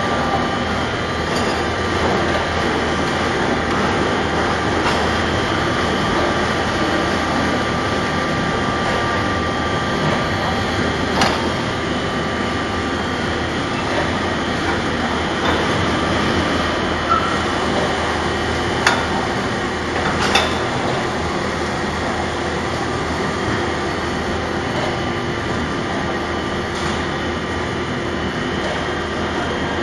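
Spindle veneer peeling lathe and reeling machine running with a steady mechanical noise, broken by a few sharp knocks in the middle stretch.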